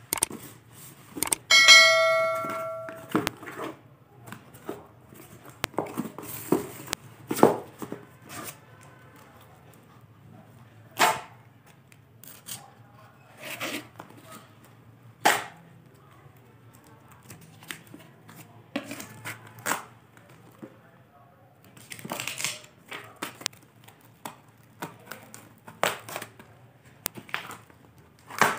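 A bell-like ding rings out about two seconds in, the chime of a subscribe-button animation. After it comes a box-cutter knife slicing packing tape and cardboard on a parcel, with scattered sharp scrapes, taps and tearing.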